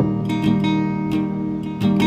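Background music: a strummed acoustic guitar playing chords in a song's instrumental intro, with no singing.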